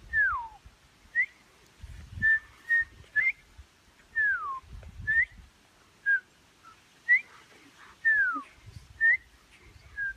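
A person whistling a repeated pattern: a long falling whistle about every four seconds, with short rising chirps and flat notes in between. Low rumbling noise sits underneath at times.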